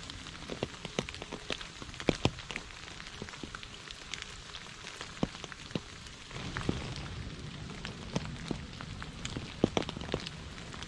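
Light rain falling on a puddled, leaf-covered path: a steady hiss with many irregular single drops plinking into the water and onto the leaves. The hiss grows a little fuller about six seconds in.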